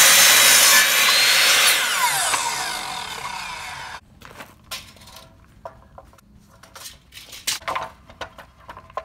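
Electric sliding compound miter saw whining up and cutting through a pine board. The blade then spins down with a falling pitch, and the sound stops abruptly about four seconds in. Scattered light knocks and clicks follow as the board is shifted into place on the saw.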